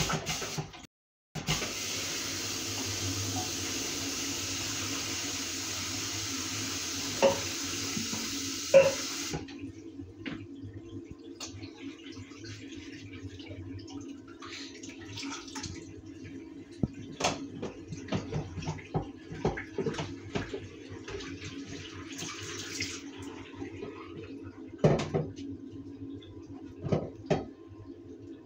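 Bathroom mixer tap running into a ceramic sink as a small bin is rinsed under it, cut off briefly near the start and then shut off about nine and a half seconds in. After that, scattered knocks and clatters of the bin being handled and set against the basin, over a steady low hum.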